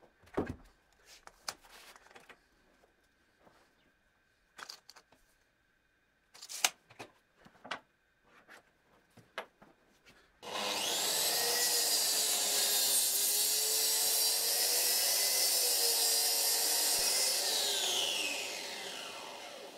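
Scattered knocks and taps of a wooden panel being flipped and measured on the bench. About halfway in, a Bosch GKT 55 GCE plunge track saw starts and runs steadily for about seven seconds as it cross-cuts the panel to length, then winds down with falling pitch near the end.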